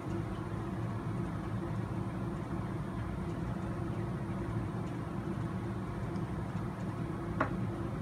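Steady low room hum, with one short sharp click near the end as small metal parts of an RC truck's front steering knuckle are fitted by hand.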